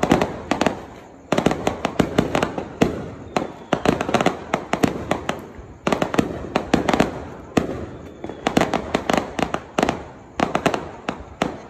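Aerial fireworks bursting overhead in rapid, dense volleys of sharp bangs and crackles, with brief lulls between the volleys.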